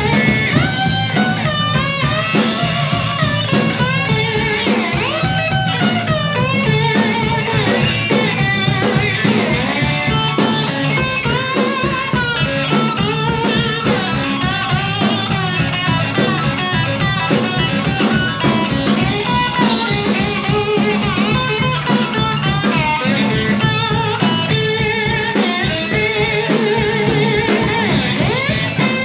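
Live blues band playing an instrumental passage: electric slide guitar over bass guitar and a drum kit, the guitar's notes gliding up and down in pitch.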